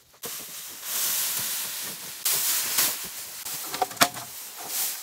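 Food frying in a pan: a loud sizzle that starts suddenly and swells several times, with a few sharp pops about four seconds in.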